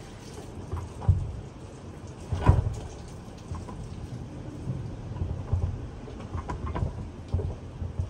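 Typhoon rain pouring steadily, with repeated short low gusts of wind buffeting the microphone; the strongest comes about two and a half seconds in.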